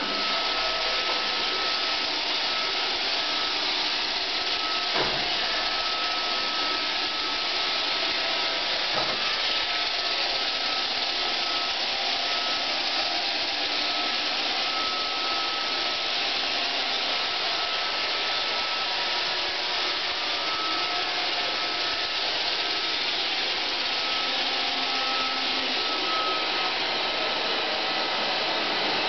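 iRobot Roomba 520 robot vacuum running as it cleans a hard floor: a steady motor and brush hum with a thin high whine. Two brief knocks come about five and nine seconds in.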